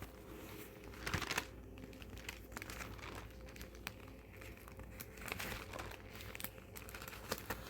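Paper pages being turned and handled, faint crinkling rustles with small clicks, the loudest rustle about a second in, as a Bible is paged through to Jeremiah.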